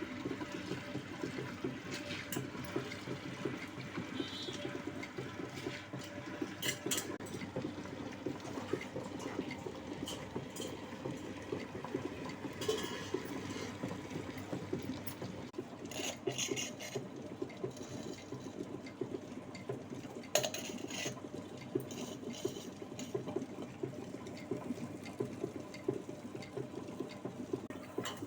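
Wet grinder running, steadily churning soaked urad dal and water into batter, with a few sharp clicks along the way.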